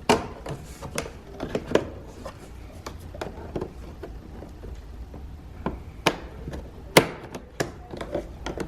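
Irregular plastic clicks and knocks of a trim tool prying at the door's switch trim piece to pop its clips loose, with sharper snaps near the start and about six and seven seconds in.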